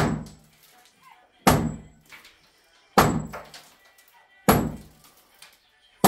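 Sledgehammer striking a cracked mud-plastered wall to knock off the old plaster: four heavy thuds evenly spaced about a second and a half apart, each dying away quickly.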